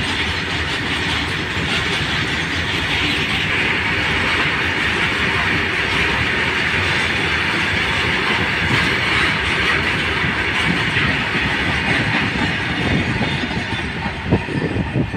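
Loaded freight train's hopper wagons rolling past at speed: a steady rush of steel wheels on rail with a dense clatter over the rail joints. Near the end the brake van passes and the sound breaks up into separate sharp clicks.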